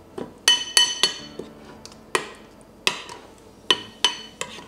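Stirring spoon clinking against a bowl while herbs are stirred into a thick sour-cream dip: about nine sharp, ringing clinks at an uneven pace.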